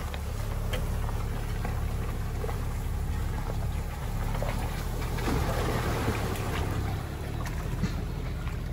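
A 2020 Land Rover Defender's engine running at a low, steady speed as the SUV creeps through tall reeds and into shallow water, with reeds brushing and rustling along its body.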